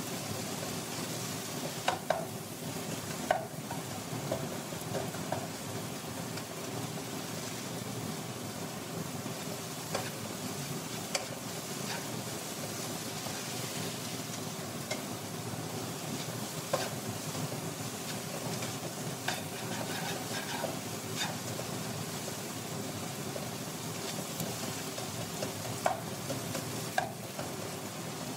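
Diced potato, onion, tomato and green chilli frying in oil in a nonstick pan, sizzling steadily as a spatula stirs and scrapes through them, with occasional sharp taps of the spatula against the pan.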